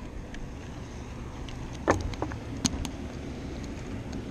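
A Penn spinning reel and rod being handled, giving a few sharp clicks about two seconds in and again shortly after. Under them runs a steady low rumble of boat motors and wind on the water.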